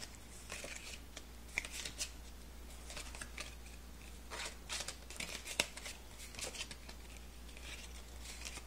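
Paper playing cards handled and sorted by suit, slid off the packet and squared in the hands: irregular soft clicks and swishes of card stock, a few at a time with short gaps.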